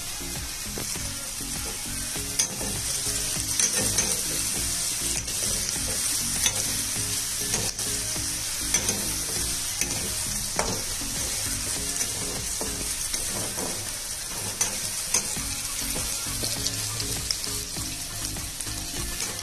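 Chopped onions sizzling in hot oil in a steel kadhai, with a metal spatula scraping and clinking against the pan now and then as they are stirred. The onions are being fried until they turn red-brown.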